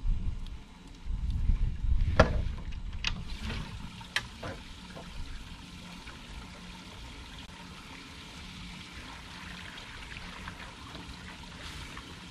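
Water trickling and dripping off a cast net as it is hauled in hand over hand, with a few sharp clicks in the first few seconds. Wind rumbles on the microphone at the start.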